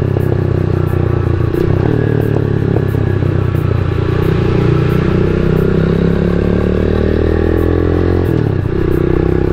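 Rusi Classic 250 motorcycle with an aftermarket BR Pipes exhaust, running with no silencer insert, heard while being ridden. The engine note holds fairly steady with small rises and falls, and eases off briefly near the end.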